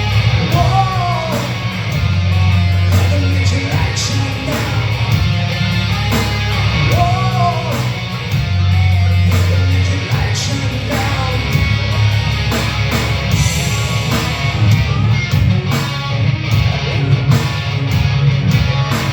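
Live rock band playing: electric guitar over a heavy bass line and drums, with gliding melodic lines in the middle range.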